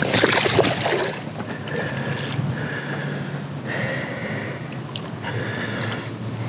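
A large pickerel splashing and thrashing at the water's edge for about a second as it is released into the pond, then a steady low hum in the background.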